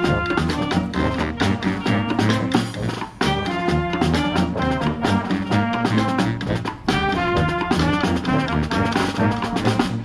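A street brass band playing a tune: sousaphone bass line, trumpets and trombones over marching snare drums. It drops out briefly about three seconds in and again near seven seconds.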